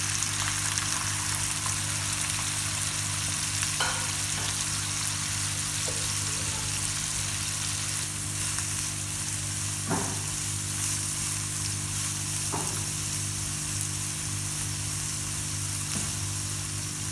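Freshly added slices of bitter gourd (karela) frying in hot oil in a nonstick frying pan: a steady sizzling hiss, with a few light knocks.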